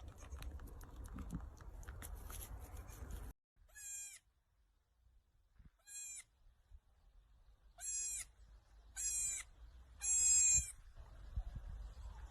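Baby goat bleating: five short, high-pitched bleats a second or two apart, growing louder, the last one longest. Before them, a few seconds of rustling and clicking end abruptly.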